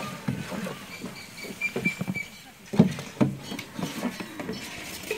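Indistinct voices with a few knocks and handling noises, the sharpest knock almost three seconds in.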